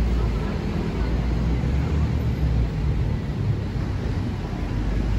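City street traffic noise from passing cars, with wind on the microphone adding a heavy, uneven low rumble.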